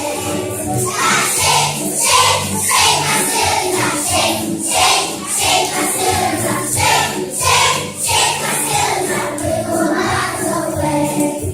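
A children's song: music with a group of young voices singing together over a regular beat.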